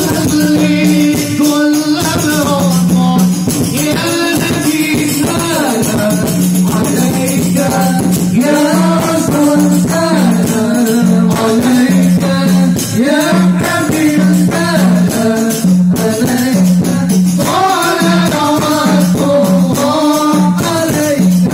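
Live sholawat: Islamic devotional singing by male voices over a group of hand-played rebana frame drums keeping a steady rhythm, amplified through a PA sound system.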